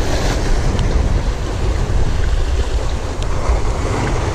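Wind buffeting the microphone, with a steady low rumble, over sea surf washing against jetty rocks.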